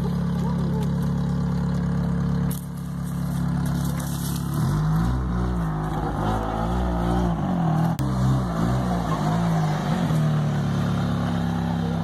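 A car engine idling steadily, revved up and down several times from about four and a half seconds in, then settling back to idle near the end.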